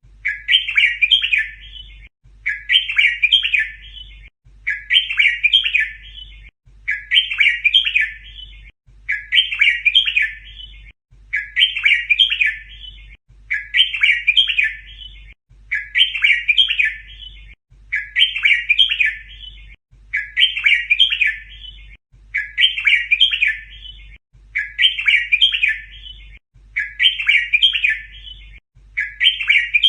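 Red-whiskered bulbul song: the same short phrase of quick chirping notes repeats about every two seconds. It is a looped tutor recording meant for teaching young bulbuls to sing.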